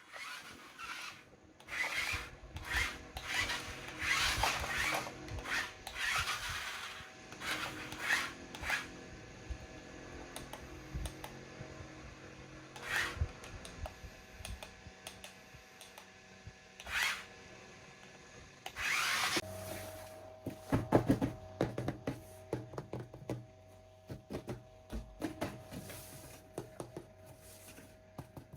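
Plastic packaging and a toy RC car being handled, with repeated short rubbing and rustling scrapes. About two-thirds of the way through, a small electric toy motor starts a steady whir under more rattling.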